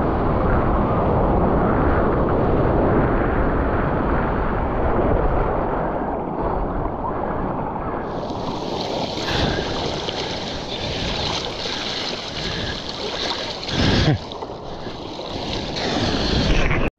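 Ocean surf: a steady rush of breaking waves and moving water, with a brief louder thump about fourteen seconds in and an abrupt cut-off at the end.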